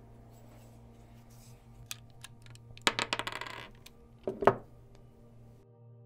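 Small hard parts being handled: a few light clicks, then a quick rattling run of metallic clicks and finally one sharp click, the loudest.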